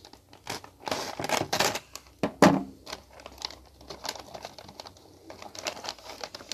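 Benchmade folding knife cutting open a package of fishing lures: packaging rustling and crinkling with scattered clicks and scrapes, and a louder sharp knock about two and a half seconds in.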